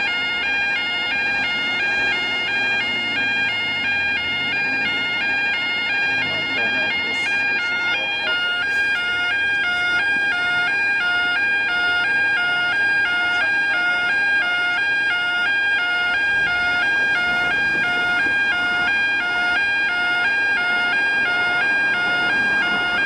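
Yodalarm YO5 level crossing alarm sounding continuously. It is a loud two-tone warble that flips evenly between two pitches several times a second, signalling that the crossing has activated for an approaching train.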